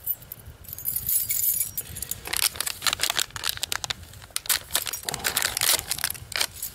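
Small foil anti-static bag crinkling and rustling as it is handled, starting about two seconds in as rapid irregular crackles.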